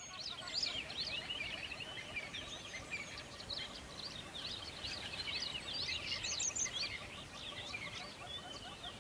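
A dense chorus of many small birds chirping and trilling at once, with a quick repeated lower note running under it, over a steady low rush of river water.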